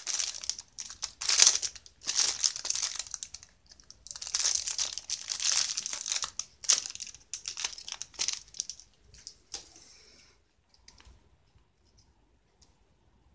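Crinkling and tearing of the wrapping as a graphics-tablet pen is unwrapped by hand, in repeated bursts that stop about ten seconds in, followed by a few faint clicks.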